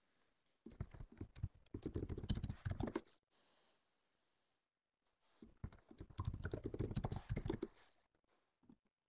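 Typing on a computer keyboard: two short bursts of quick key clicks, the second starting about halfway through.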